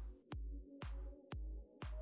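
Background electronic dance music: a steady beat of about two thumps a second over held synth notes.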